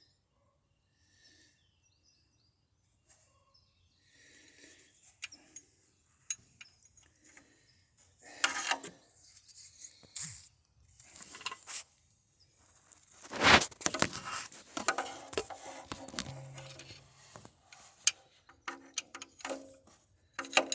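Scattered handling noises in a car's engine bay: rustling, clicks and light metallic clinks as hands, hoses and parts are moved. The loudest rustle comes about thirteen seconds in, after a near-silent start.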